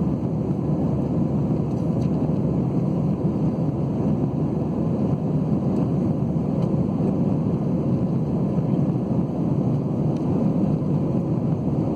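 Steady low roar of an Airbus A320-family airliner's jet engines and airflow, heard inside the passenger cabin during the climb after takeoff.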